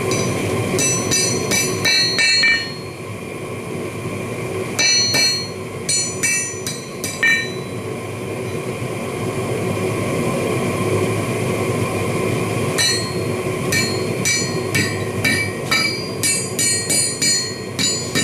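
Hand hammer striking a hot steel bar, a piece of bicycle kickstand, on a steel anvil to rework an L-bend. Each blow rings with a high metallic tone. The blows come in short bursts, stop for several seconds in the middle, then resume more quickly, about two a second, toward the end, over a steady low rumble.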